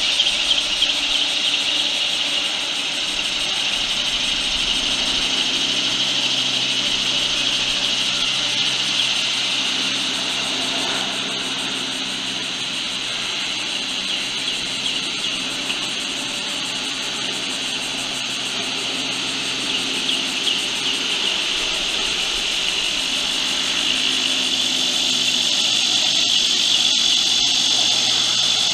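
A gray squirrel gnawing a pine cone: faint scratchy chewing and rasping now and then, under a steady high-pitched drone and a low hum.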